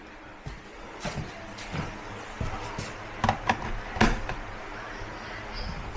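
Several sharp knocks and clicks, about a second in and again around three to four seconds in, over a faint steady hum.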